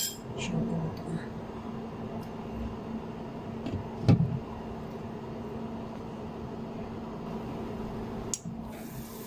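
A glass pot lid is set down on a steel soup pot with a sharp clink about four seconds in, and a fainter click comes near the end. Under it runs the steady hum of induction cooktops heating at full power.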